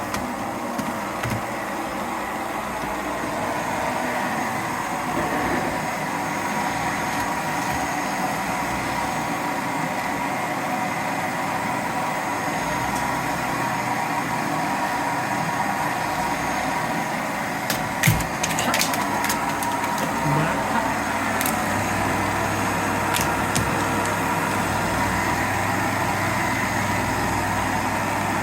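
Vacuum cleaner running steadily, with a sharp knock about 18 seconds in and a few faint clicks after it.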